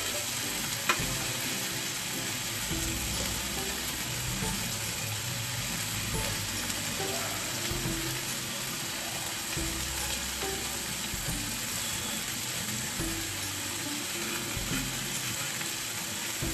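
Marinated chicken pieces sizzling steadily in a little oil on a hot ridged grill pan, with a sharp click about a second in as metal tongs turn the pieces.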